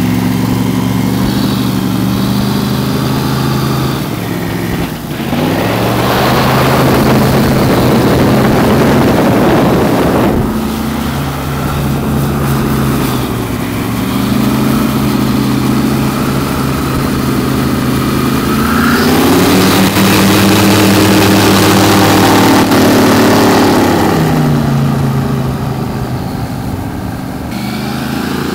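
Airboat's 572 cubic inch big block Chevy V8 driving a counter-rotating propeller, running at speed. The engine note rises and falls several times with the throttle. A loud rushing noise rises over it from about five to ten seconds in.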